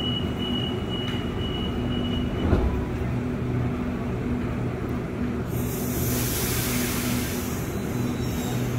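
Sydney Trains electric train standing at an underground platform, its equipment giving a steady low hum. A thin high tone stops about two and a half seconds in, along with a single thump. From about halfway through comes a loud hiss of air that lasts about three seconds.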